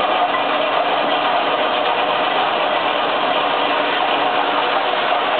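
Concept HD 50 heavy-duty industrial paper shredder running with a steady mechanical noise as paper is fed into its hopper.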